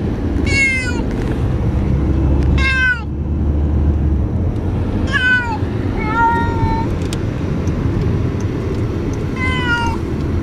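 A tabby cat meowing in distress during a car ride: about five long meows a few seconds apart, most falling in pitch, one around six seconds in lower and flatter. The steady low rumble of the moving car runs underneath.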